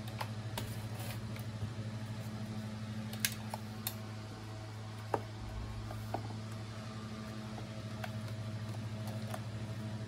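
Scattered small clicks and taps of plastic parts and wires being handled as a circuit board is fitted into a vacuum cleaner's plastic housing, the sharpest a little past the middle, over a steady low hum.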